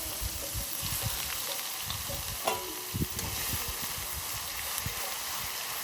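Onion paste sizzling steadily in hot oil in a pan, with a spatula stirring it and knocking now and then against the pan.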